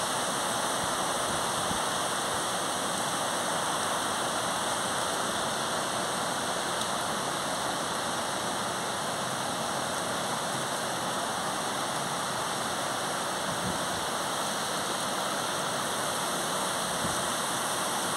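Heavy rain of big, fat drops falling steadily on trees and tiled rooftops.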